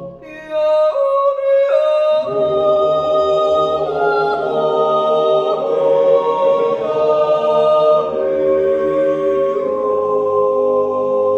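Men's yodel choir singing a cappella in sustained chords. After a brief pause, a few higher voices enter one after another, and the full choir with its low voices joins about two seconds in.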